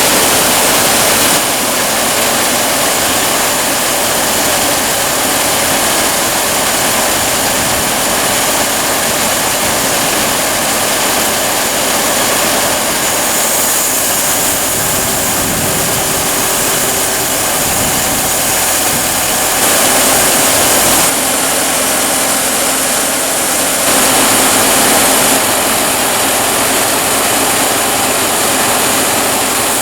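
Large sawmill running loud and steady while sawing a big deadhead cypress log into slabs. The noise shifts abruptly in level and pitch a few times along the way.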